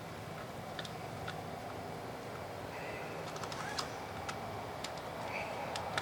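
Scattered light clicks and taps of small parts being handled during reassembly of an Evinrude Deluxe 4 outboard's recoil starter (rope sheave, cup and rewind spring), over a steady background hum.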